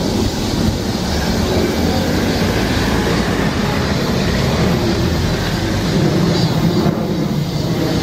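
Steady low rumble of road traffic passing on the street.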